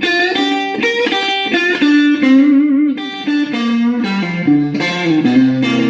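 Electric guitar playing a blues fill: a run of picked single notes, some with a wavering vibrato, stepping down to a held low note near the end.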